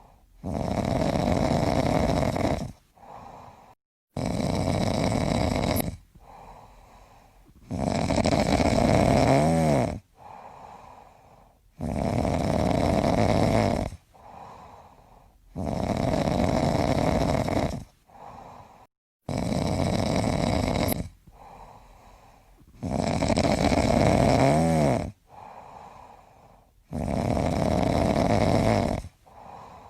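A person snoring in a steady rhythm: a long, loud snore about every four seconds, eight in all, with softer breathing sounds between the snores.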